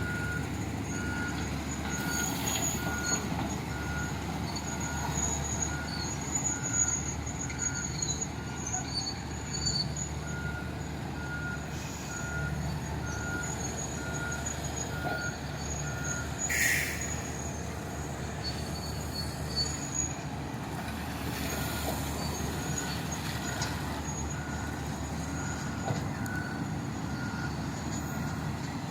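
Heavy diesel mining machinery running, with a reversing alarm beeping steadily a little over once a second. The beeping pauses for a few seconds just past the middle, where one short loud hiss sounds.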